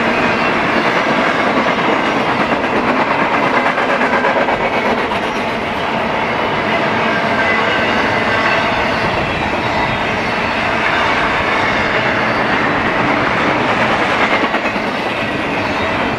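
Double-stack container train's loaded well cars rolling past, a loud steady rumble of steel wheels on rail with clickety-clack over the rail joints.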